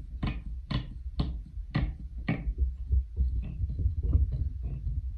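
Yarn loops popping off the nails of a wooden pin loom as the woven square is lifted off: a run of sharp ticks about twice a second, turning into fainter, quicker ticks and rustle about halfway through.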